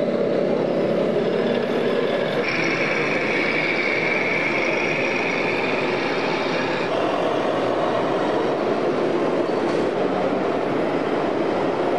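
Radio-controlled model trucks driving, a steady mechanical whir of their electric drive motors and gearboxes, with a high steady whine from about two and a half to seven seconds in.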